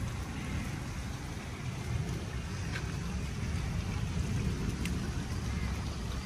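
Steady noise of rain and running rainwater: a continuous hiss over a low rumble, with a couple of faint clicks.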